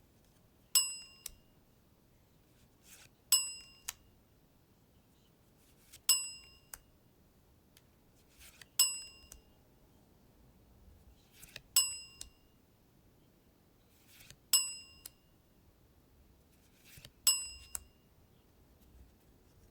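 A bright bell-like ding, struck seven times at an even pace of about one every 2.7 seconds. Each ding rings briefly and is followed by a softer click, with faint rustling in between.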